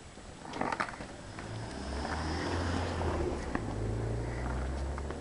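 Skateboard wheels rolling over rough wet asphalt, a steady low rumble that sets in about a second and a half in, after a few sharp clicks.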